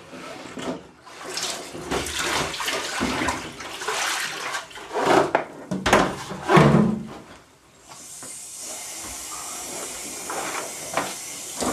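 Pigment wash water sloshing and splashing in a plastic darkroom tray as it is handled and tipped, then from about eight seconds in a steady stream of running water.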